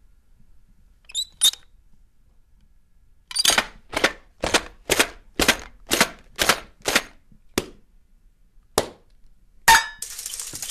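Sharp cartoon sound-effect cracks: two quick ones, then a steady run of about two a second that slows and ends with a louder crack.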